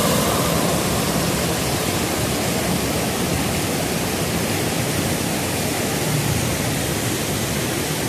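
Steady rush of a small waterfall: creek water pouring over low rock ledges and rapids.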